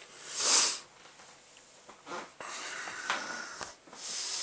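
A man's breathing close to the microphone, with a sharp, loud nasal breath about half a second in and quieter breaths after it.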